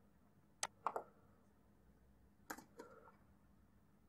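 Faint computer keyboard keystrokes: a few clicks in two small clusters, under a second in and again about two and a half seconds in.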